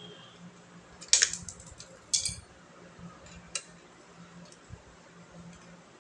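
Two sharp metallic clanks about a second apart, the second ringing briefly, then a single lighter click: metal parts or tools being handled.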